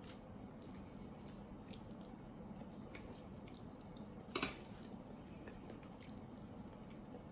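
Faint close-up sounds of a person chewing soft pasta, with small wet clicks of the mouth. One brief louder noise about four and a half seconds in.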